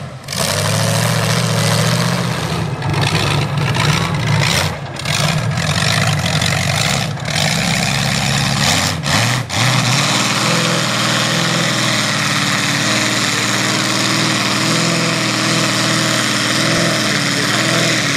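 Mega truck engine running and revving, with brief breaks and rising revs in the first half. From about ten seconds in it runs steadily under load as the truck churns through a water-filled mud pit, its big tyres throwing mud and water.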